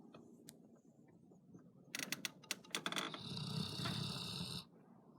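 A sleeping pet snoring: a run of irregular clicky, fluttering breaths about two seconds in, then one long rasping snore that cuts off suddenly near the end.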